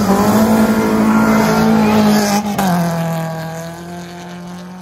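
Rally car engine held at high revs as the car passes close by. About two and a half seconds in, the revs drop sharply with a short crack, and the engine carries on at lower, steady revs while the sound fades.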